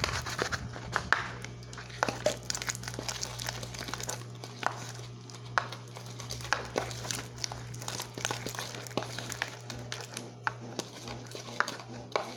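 Slime being worked and mixed, giving off irregular sticky clicks and crackling pops, with a steady low hum underneath.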